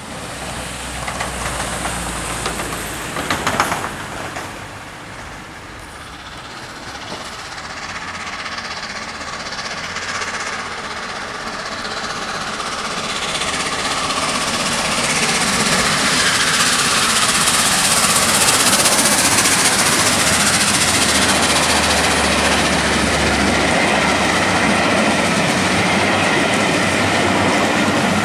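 Peppercorn A1 Pacific steam locomotive 60163 Tornado and its coaches running through at speed. The sound swells from about twelve seconds in into a loud, steady rush with wheels clattering over the rails, and holds to the end. There is a brief loud clatter about three and a half seconds in.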